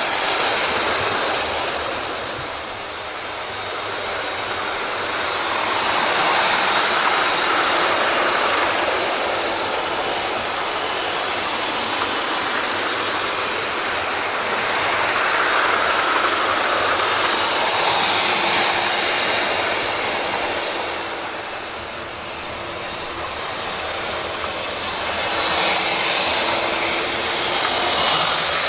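00 gauge model trains running on the track: a steady whirr of small electric motors and wheels on the rails. It swells each time a train passes close by and fades again, several times over.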